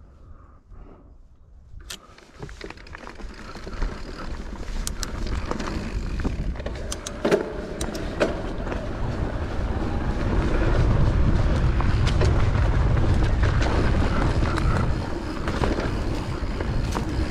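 Santa Cruz Bullit electric mountain bike riding down a dry, stony dirt trail: tyres rolling over gravel and the bike rattling, with sharp clicks and knocks as it hits rocks, under wind rushing over the handlebar-mounted camera's microphone. Almost quiet for the first two seconds, then it grows louder as the bike picks up speed.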